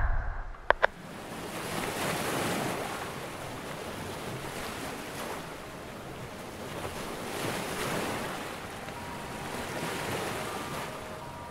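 Water waves washing in and easing off in slow swells, with two sharp clicks just under a second in.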